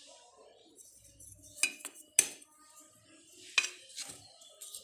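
A few sharp clinks of a spoon and a dessert cup against a steel bowl and steel dishes, the loudest about two seconds in and again about three and a half seconds in.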